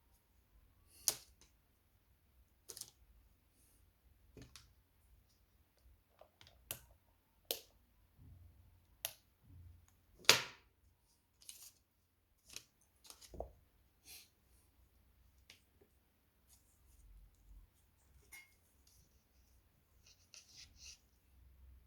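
Scattered clicks and light taps at irregular intervals, the loudest about ten seconds in, as small parts and tools are handled.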